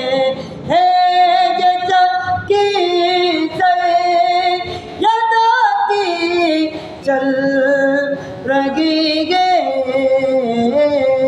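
Naat singing: a voice holding long, drawn-out notes of one to three seconds each, with gliding turns in pitch and short breaks between them.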